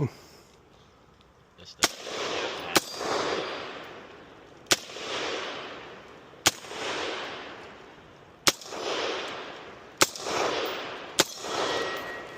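Gunshots outdoors: seven single shots fired at an uneven pace, one every one to two seconds, each followed by a long rolling echo.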